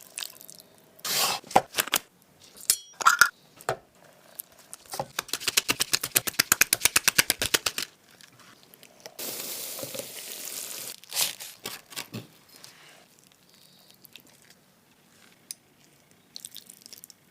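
Close-miked food sounds: crunches, tearing and clinks. About five seconds in comes a rapid run of some eight clicks a second lasting about three seconds, then a couple of seconds of steady hiss.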